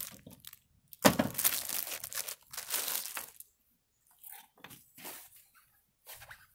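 Plastic packaging crinkling and rustling as a folded fabric garden hat is unwrapped and shaken out: a long stretch of crinkling starting about a second in, then several short rustles.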